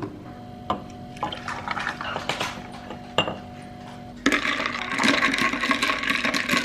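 A few light clicks and knocks, then about four seconds in, water suddenly starts running with a steady rush.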